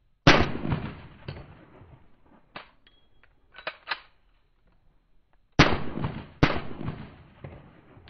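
Pistol shots fired one by one at a slow, deliberate pace, each crack trailing off in a short echo. The loudest comes about a third of a second in and two more follow close together past the halfway point, with quieter reports between.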